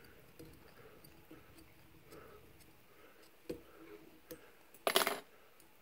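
Faint small ticks and clicks of a wire whip-finisher tool being turned around the thread at a fly's bead head in a vise. A sharper click comes about three and a half seconds in, and a short, louder scratchy burst of clicks about five seconds in.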